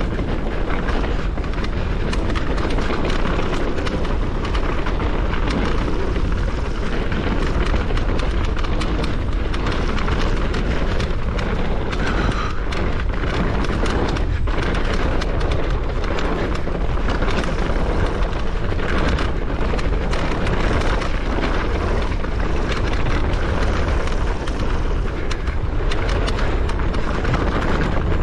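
Mountain bike descending a rough trail: wind buffeting the microphone over the rolling of the tyres, with frequent short rattles and knocks.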